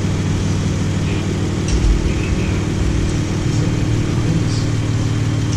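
A 2012 Chrysler minivan's V6 engine idling steadily, running with its fuel pump fed through a temporary jumper wire that bypasses the faulty fuel pump relay in the TIPM. A brief low thump near two seconds in.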